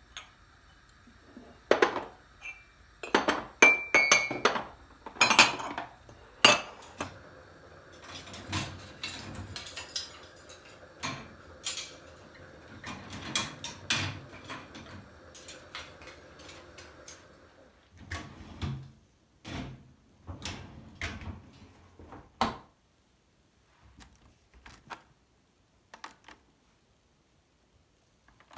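Kitchen work with dishes, pots and cutlery: a run of separate clinks and knocks, busiest in the first half, over a faint steady hum that stops about two-thirds of the way through, after which only scattered knocks remain.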